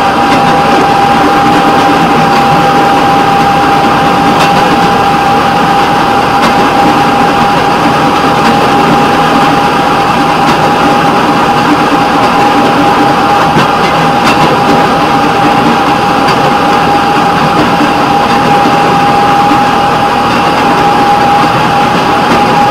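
Rail patrol car running along the track: steady engine and wheel-on-rail noise, with a constant high whine over it.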